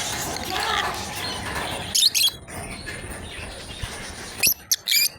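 Lovebirds giving shrill, sharp chirps in two short bursts, one about two seconds in and a longer one near the end, over a quieter background of bird chatter.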